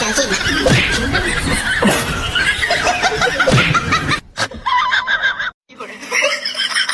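People laughing and snickering for about four seconds, then cut off suddenly; after a brief silence, a different sound with a steady, repeating pattern starts near the end.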